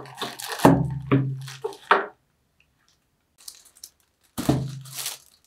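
Lamp parts and plastic-wrapped lamp bases being handled on a table: several knocks as pieces are set down or bumped, with plastic wrap rustling. The sounds come in two clusters with about a second of quiet between them.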